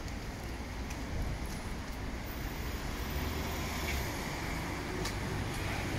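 Steady city street traffic: cars running past with road noise and a low engine hum that grows louder about halfway through.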